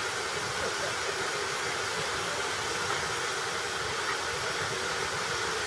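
Stationary Stanier Class 5MT 'Black 5' steam locomotive letting off steam, a steady hiss that does not change.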